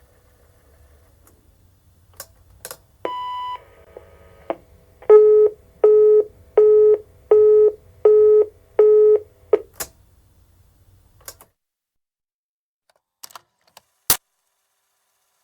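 Cassette-tape telephone answering machine working: its tape mechanism runs with a low hum and a few clicks, gives one higher beep, then six loud beeps about two-thirds of a second apart. More clicks follow and the motor stops at about 11 seconds, then a sharp clunk near the end.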